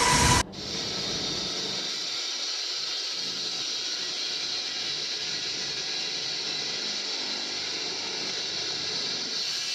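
Wire saw cutting concrete, heard as a steady, even hiss with no clear tone; it follows an abrupt cut from louder machine noise about half a second in.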